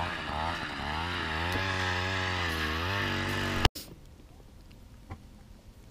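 A small gasoline engine running, its pitch rising and falling as it revs, then cutting off abruptly a little past halfway. A few faint clicks follow.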